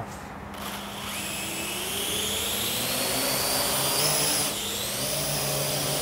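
Parrot AR Drone 2.0 quadcopter's four electric motors and propellers spinning up for take-off, a whine that starts about half a second in and rises in pitch as it lifts off, then holds steady in a hover. It is carrying a 200-gram (half-pound) weight and handles it fine.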